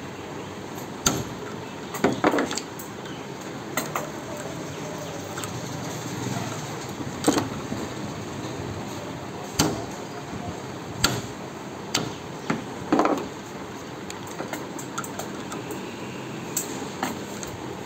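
Workshop hand-tool work: about a dozen sharp knocks and clanks at irregular intervals, some ringing briefly, over a steady background noise.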